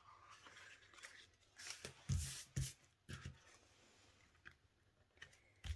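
Paper cards being handled on a work surface: brief rustles and a few soft taps, the busiest about two seconds in and again near the end.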